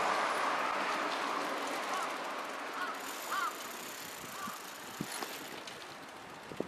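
A passing road vehicle's tyre and engine noise fading away as it recedes, with a few faint crow caws.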